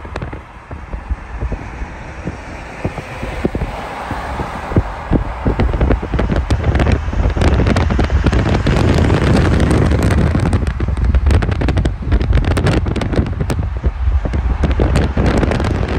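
Road and wind noise from a moving car, with wind buffeting the microphone in irregular gusts; it grows louder over the first six seconds or so as the car speeds up.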